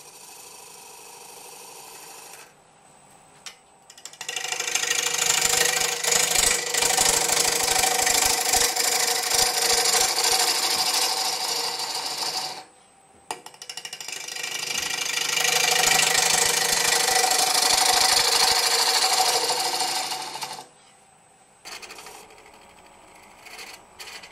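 Bowl gouge cutting a Drake elm blank spinning on a wood lathe: two long cutting passes, the first about eight seconds and the second about seven, with only the quieter running of the lathe before, between and after them.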